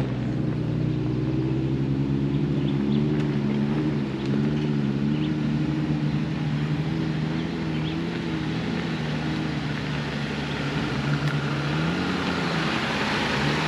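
Jeep Wrangler's engine running as it crawls up a rutted dirt trail, its note rising and falling with the throttle. A rising hiss builds in near the end.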